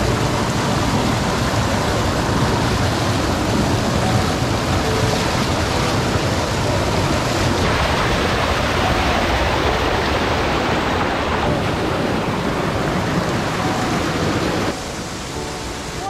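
Waterfall water pouring and rushing in a loud, steady hiss, close to the microphone; it drops in level about a second before the end.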